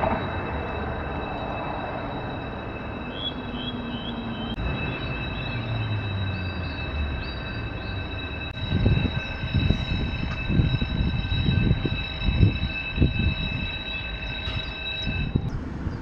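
A steady high-pitched whine that cuts off suddenly about a second before the end, with bird chirps over it and uneven low rumbles in the second half.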